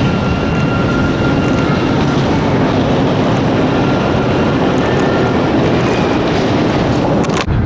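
Steady rushing rumble of a moving vehicle with faint whistling tones, and a sharp click near the end.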